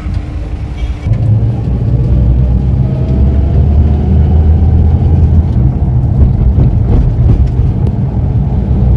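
Car driving on the road, heard from inside the cabin: a steady low engine and road rumble that grows louder about a second in, with a faint engine note rising slowly as the car picks up speed.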